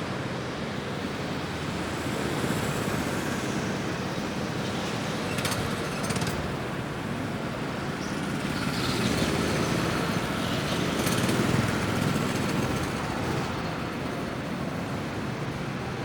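Motor vehicle engines in a motorsport recording: a steady, noisy rush that swells around the middle, with a few short clicks.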